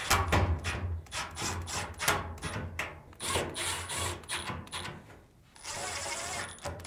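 Power screwdriver driving screws into the dryer's front drum assembly, running in several short bursts with brief pauses between them.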